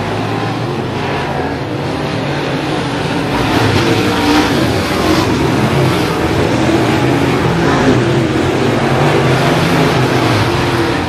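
Dirt late model race car's V8 engine running as the car circles the track, growing louder a few seconds in as it comes nearer and passes close near the end.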